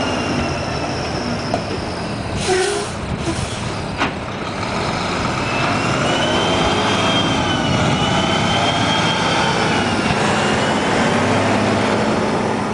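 Tractor-trailer truck running as it approaches and drives over a railroad grade crossing. A short air-brake hiss comes about two and a half seconds in, and a whine that wavers in pitch runs through the middle.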